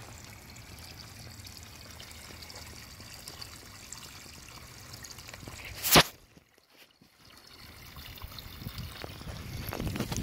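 Liquid trickling and dribbling steadily. About six seconds in comes a single sharp knock, followed by a brief near silence, then a rising rustle of handling or wind toward the end.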